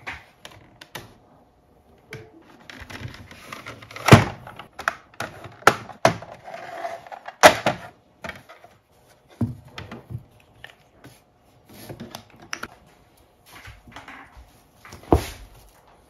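Plastic case of a Cherry G80-1800 keyboard being handled and taken apart: irregular clicks, snaps and knocks of the plastic shell and its clips. A few knocks stand out, the loudest about four seconds in.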